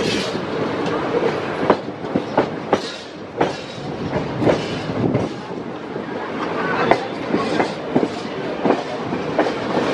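Wheels of two Indian Railways passenger trains running side by side on adjacent tracks, heard from a coach doorway. A steady rumble is broken by irregular sharp clacks as the wheels cross the rail joints.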